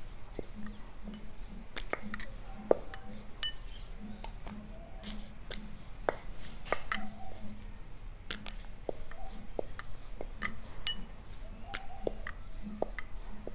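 Rolling pin rolling out dough on a round board, going back and forth about twice a second, with sharp clinks of bangles and light knocks of the pin on the board.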